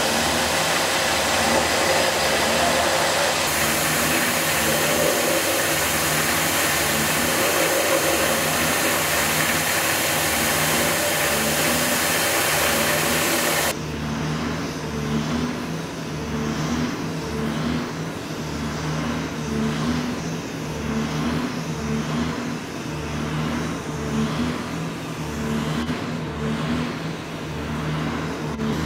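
Belt grinder running with a forged dagger guard pressed against the abrasive belt: a loud, steady grinding hiss. About fourteen seconds in it cuts off abruptly, leaving a quieter steady machine hum.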